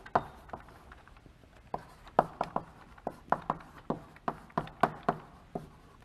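Chalk writing on a blackboard: a run of sharp, irregular taps and clicks as each letter is struck onto the board, thickest from about two seconds in.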